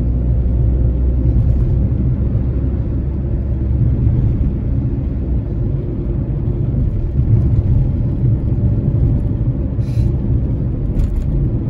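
Steady low rumble of a car's engine and tyres on the road, heard from inside the cabin while driving, with a couple of brief clicks near the end.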